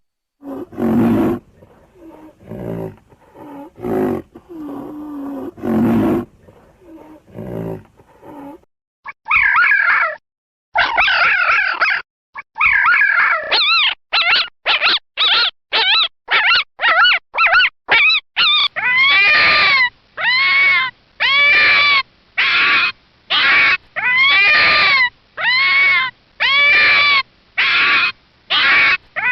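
Animal calls from several animals in turn: low growls for the first eight seconds or so, then quick pitched yelping calls, then a run of repeated pitched calls about one a second.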